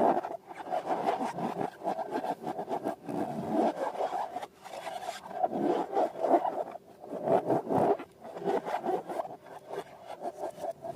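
Slime being squeezed and worked by hand in a bag, a continuous irregular rubbing and scraping with a couple of short pauses.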